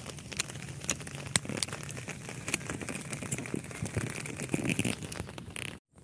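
A plastic bag crinkling and rubbing against the phone, with irregular crackles and clicks of handling noise while walking; the sound cuts off abruptly near the end.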